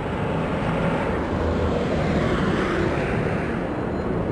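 Steady road traffic noise, swelling slightly in the middle.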